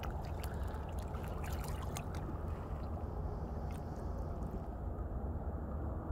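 Cocker spaniel wading in shallow river water, her paws splashing. The splashes come thick in the first couple of seconds, then only a few more, over a steady low rumble.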